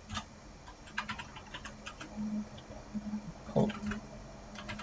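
Computer keyboard typing: irregular light key clicks, over a faint steady hum, with a brief vocal sound a little past halfway.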